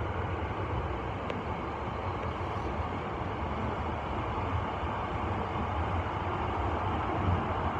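Subway train running through a tunnel, heard from inside the front car: a steady rumble of wheels on rail, with a faint click about a second in.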